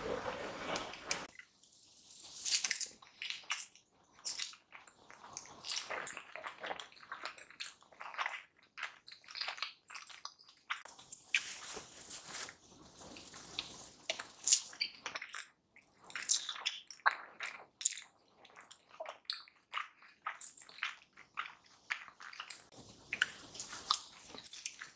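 Close-miked eating of prawn dumplings in chilli oil: soft, wet bites, chewing and lip smacks, with many short sticky clicks.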